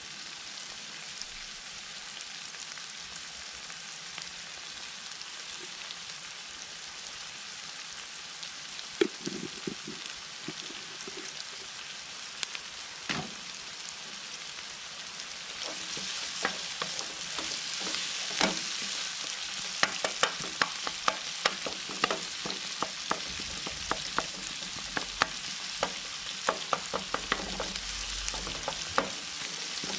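Chopped onions sizzling in hot oil in a frying pan, a steady hiss that gets louder about halfway through. In the second half a wooden spoon stirs them, with many quick taps and scrapes against the pan.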